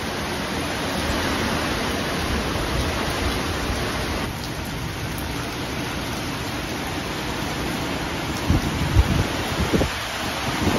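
Steady, heavy hurricane rain falling. A few short, low thumps come in the last couple of seconds.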